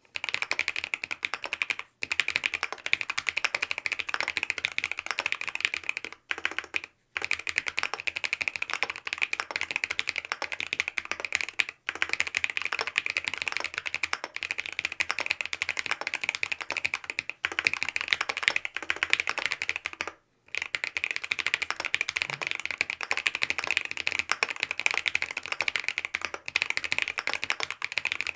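Fast, continuous typing on a Mont Cervin mechanical keyboard with lubed BSUN OG Holy Panda tactile switches, a polycarbonate plate, foam dampening and Key Kobo keycaps: rapid clacky keystrokes with brief pauses a few times.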